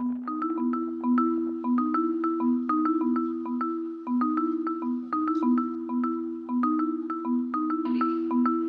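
Background music: a gentle mallet-percussion melody of short struck notes in a repeating two-note pattern, marimba-like.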